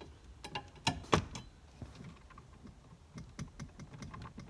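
Small clicks and taps of screws and interior plastic panel parts being handled while a panel is fastened, with two sharper knocks about a second in and a run of light ticks near the end.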